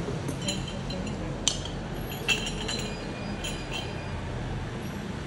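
Light metallic clinks and taps as the metal paint cup of a Hokia R-71 gravity-feed spray gun is handled and turned onto the gun, with short bright ringing after some of them. Two sharper knocks stand out, about a second and a half and just over two seconds in.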